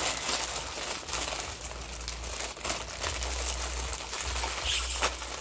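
Plastic cracker packet crinkling and crackling as it is handled and opened.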